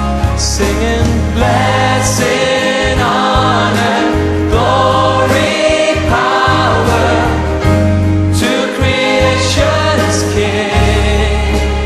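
Background music: a choir singing a hymn with accompaniment.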